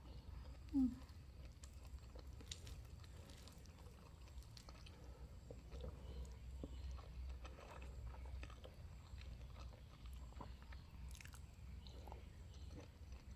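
Close-up eating sounds from a mukbang: quiet chewing with small wet clicks and light crunches scattered throughout. About a second in, a brief low pitched sound is the loudest moment.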